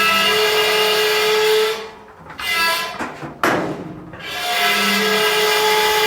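Clothes dryer's newly fitted drum belt squealing in long, steady, high-pitched squeals, broken about halfway through by a brief lull and a sudden harsh rasp before the squeal resumes. The owner thinks the belt may be twisted.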